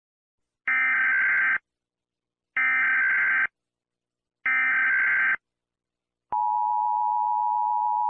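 Emergency Alert System broadcast tones: three short bursts of warbling SAME header data, each about a second long and about a second apart. The steady two-tone EAS attention signal starts about six seconds in.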